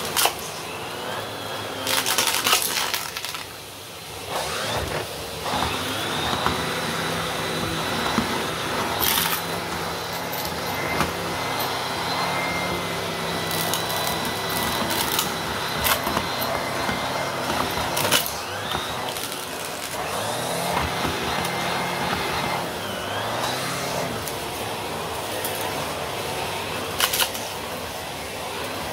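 Henry Extra canister vacuum cleaner running steadily while its floor head is pushed over carpet and a wooden floor. Scattered sharp clicks and rattles come from debris being sucked up the wand.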